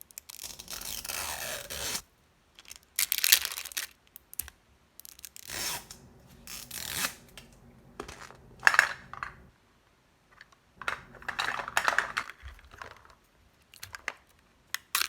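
Small plastic packaging torn open and crinkled by hand, in about six bursts of tearing and scraping with short quiet gaps. This is a Mini Brands capsule and its wrappers being opened.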